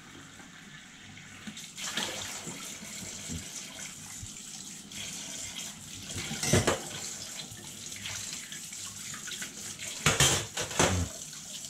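Kitchen tap running steadily into a stainless steel sink as dishes are rinsed clear of soap suds under the stream. Sharp, louder knocks come about six and a half seconds in and again near ten seconds as the dishes are handled in the sink.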